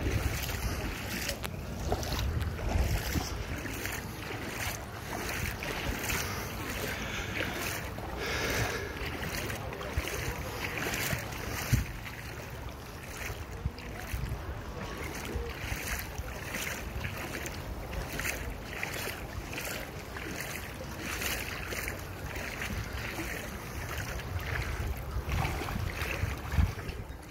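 Steps wading through shallow floodwater, splashing irregularly, with wind rumbling on the microphone.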